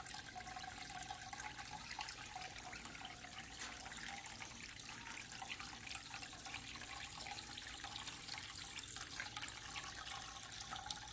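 Small indoor decorative water fountain running, water trickling and dripping steadily into its basin.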